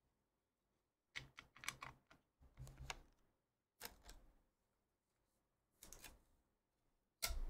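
Faint, irregular clicks and crinkles of a clear plastic card sleeve being handled as a trading card is slid into it, in several short spells.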